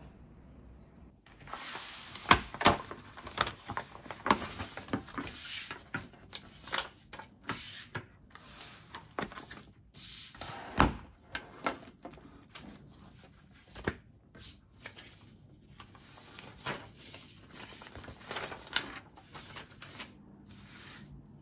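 Papers and study books being handled on a wooden desk: pages and sheets rustling, with light knocks and taps as they are moved and set down. It starts about a second in.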